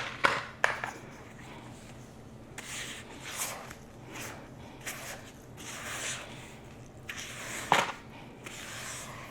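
Hand mixing cookie dough in a bowl: soft scraping strokes of a spoon or spatula against the bowl, with a sharp knock about three-quarters of the way through.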